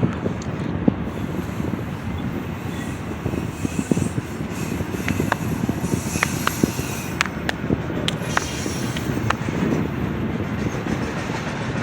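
Union Pacific freight train rolling past, a steady rumble of wheels on rail. From about halfway through there is a run of about nine sharp clicks.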